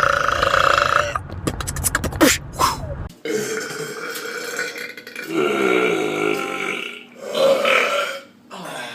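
Several long, drawn-out belches, one after another, with an abrupt change of background about three seconds in.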